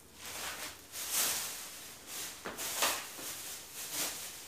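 Plastic grocery bags rustling and crinkling in a string of short, irregular bursts as they are handled and rummaged through.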